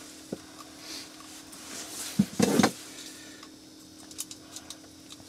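Handling noises as a pickerel is unhooked with long-nosed pliers: a sharp click, a louder scuffle about two seconds in, then a few light ticks near the end. A faint steady hum runs underneath.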